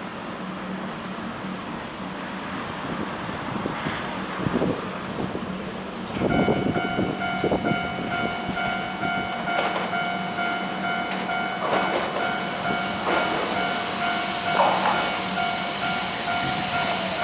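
Hiroden Miyajima Line train passing through the station crossing: a rumble builds, grows loud about six seconds in, and then wheels knock over rail joints every second or two. Several steady high-pitched tones ring from the moment it grows loud.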